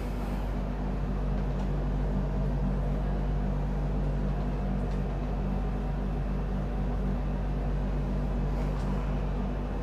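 Steady electrical hum with a buzz of evenly spaced overtones, unchanging throughout. Faint brushing of a duster wiping a whiteboard can be heard now and then beneath it.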